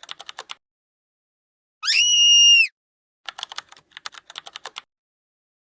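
Typing on a computer keyboard in two short runs of quick key clicks. Between them, about two seconds in, a short high-pitched tone slides up and then holds for under a second, louder than the typing.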